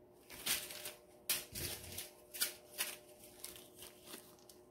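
Small plastic zip-lock bags of diamond-painting resin drills crinkling as they are handled and swapped, in a quick string of irregular rustles.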